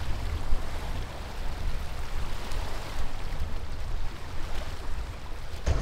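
Small waves lapping and splashing against a shoreline rock, with wind rumbling on the microphone.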